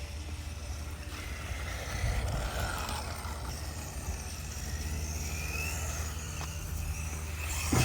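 Electric motor and drivetrain of a small RC truck whining as it speeds up and slows down, over a steady low rumble. A single sharp knock near the end.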